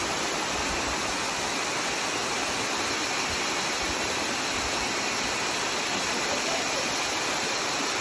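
Rushing stream water: a steady, even rush of noise with no breaks or changes.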